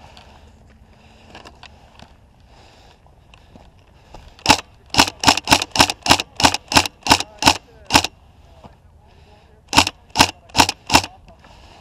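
Airsoft electric gun (AEG) shooting single shots in quick succession close to the microphone: a string of about a dozen sharp cracks about three a second, then a pause, then four more.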